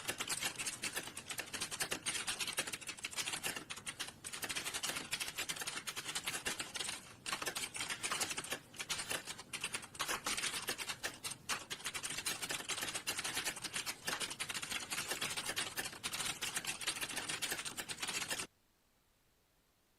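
Fast, continuous typing on a computer keyboard, a dense run of key clicks with brief pauses, that stops suddenly near the end.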